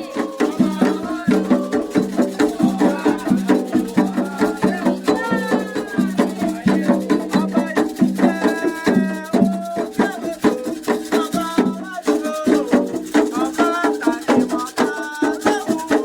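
Candomblé music for Xangô: voices singing a chant over percussion, with drums and a rattle keeping a dense, steady beat.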